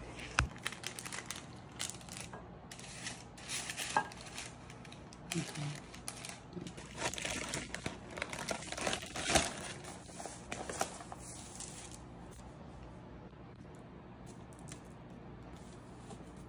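Crinkling of a Pepperidge Farm cookie bag being handled while cookies are taken out, with a few sharp knocks, the loudest about nine seconds in. The crinkling stops about twelve seconds in, leaving only faint handling of the cookies on parchment paper.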